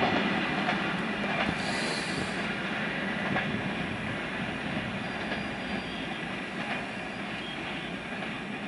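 Passenger coaches of the diesel-hauled Humsafar Express running through a station at speed without stopping. The wheels clatter over the rail joints, with a brief high squeal about two seconds in, and the noise slowly fades as the train draws away.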